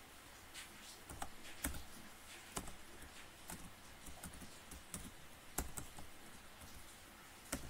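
Faint computer keyboard typing: a slow, irregular run of single keystrokes.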